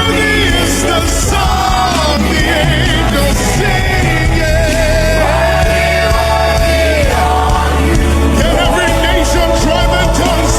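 Live gospel worship music: a sustained band accompaniment with steady low bass, and a voice singing long held notes that waver, one held for a couple of seconds near the middle.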